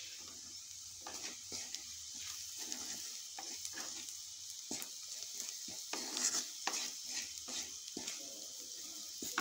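Wooden spatula stirring and scraping frying onion, garlic and ginger around a hot, oiled kadhai in irregular strokes, over a steady sizzle of the oil.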